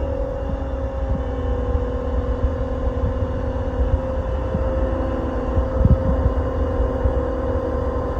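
A large engine running steadily at constant speed, a steady whine over a low rumble.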